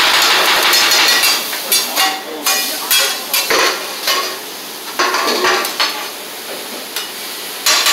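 Metal spatulas scraping and clanking on a steel flat-top griddle as the cook chops and turns cheesesteak meat, with the meat sizzling underneath. About a second of fast scraping opens, then a run of separate sharp clanks.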